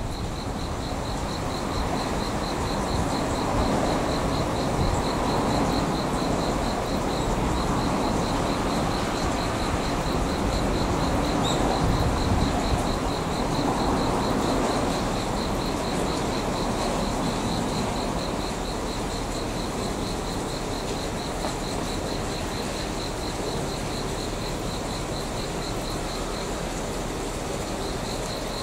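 Insects chirping in a steady, evenly pulsed high trill, over a distant low rumble that is a little stronger in the first half.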